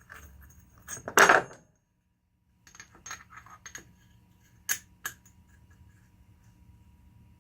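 Steel parts of a Spartan Locker differential locker clinking together as they are fitted by hand: one loud metallic clank about a second in, then several lighter clicks and two sharp ticks around five seconds in.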